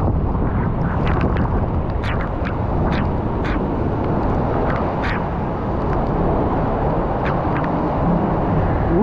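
Rushing water and the whoosh of a rider sliding fast through an enclosed water slide tube, with scattered short knocks along the way.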